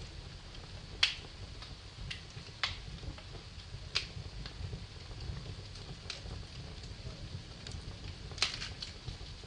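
Wood fire in a fireplace crackling, with a few sharp pops, the loudest about a second in and again near the end, over a low steady rumble.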